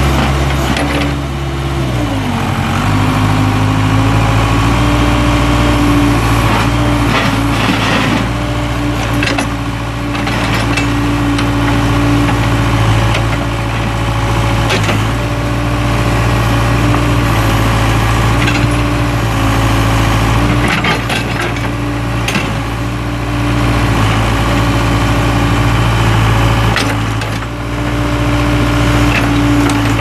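Case four-cylinder turbo diesel engine of a 1987 Case 580K backhoe running steadily while the backhoe boom and bucket are worked. Its pitch drops about two seconds in and dips briefly a couple more times later, with a few short knocks in between.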